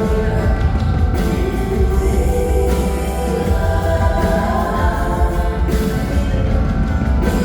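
Live concert music: a woman singing held, drawn-out notes over a band with heavy bass.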